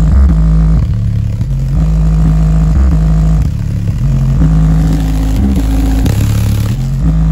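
Bass-heavy music played loud through an Aiwa 5.25-inch woofer in a small cardboard box, its deep bass notes changing every half second or so. The cone and the cardboard box vibrate hard with each note.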